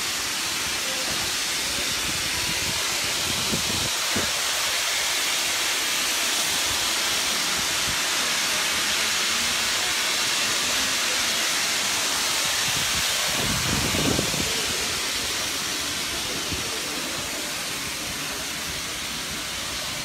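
Natural gas escaping under pressure from a split underground supply pipe: a loud, steady, high-pitched hiss that eases slightly near the end, with a short low rumble about fourteen seconds in.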